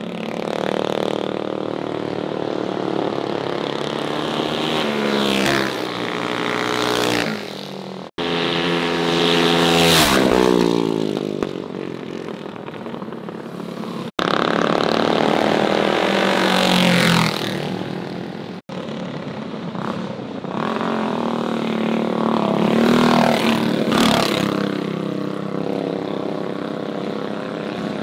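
Small mini bike engines revving and riding past, their pitch rising and falling through several passes. The sound is broken into separate stretches by a few abrupt cuts.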